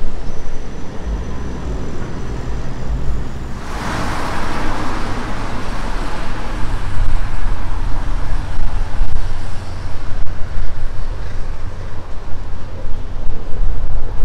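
Road traffic on a busy city street, with wind buffeting the microphone in a steady low rumble. The traffic noise swells sharply about four seconds in and then fades slowly.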